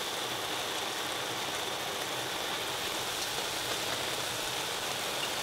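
A pot of potato greens simmering, with a steady crackling hiss.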